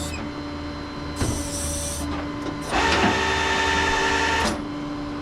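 Tow truck's hydraulics or winch running with a steady hum, a knock about a second in, then a louder, higher whine for about a second and a half near the middle as it takes load.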